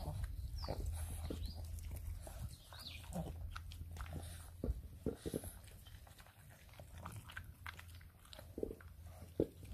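English bulldog puppy eating a wet mush of raw meat and spinach from a stainless steel bowl: irregular wet chewing, smacking and clicks. Under it, a low steady rumble fades out after the first couple of seconds.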